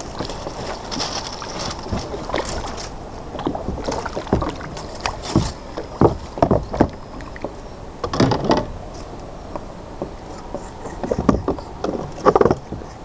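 Water splashing and lapping around a plastic kayak, with a handful of sharp knocks and bumps of gear against the hollow hull.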